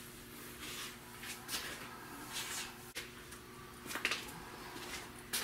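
Soft, irregular swishes of a cleaning rag wiping a fiberglass truck cap and being handled, about one a second, over a steady low hum.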